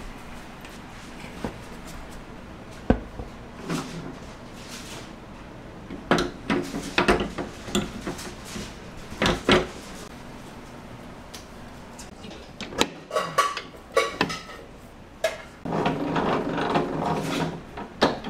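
Kitchen work clatter: irregular knocks and clanks of utensils and equipment being handled, thickening into a busier stretch near the end.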